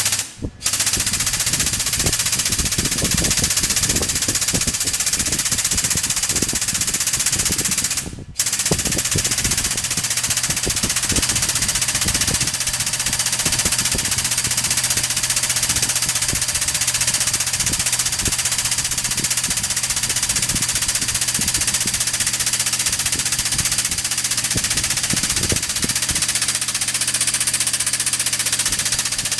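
Air-over-hydraulic 12-ton bottle jack's pneumatic pump running, a rapid rattle with loud air-exhaust hiss, as it drives the ram to bend steel tubing. It stops for a moment about eight seconds in, then carries on.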